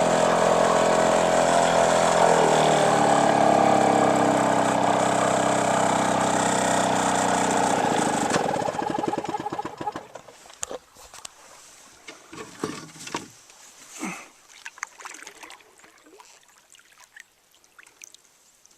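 Small outboard motor running steadily, its pitch dropping about two seconds in, then shut off and running down to a stop about eight seconds in. After it stops, faint water trickles, light splashes and small knocks.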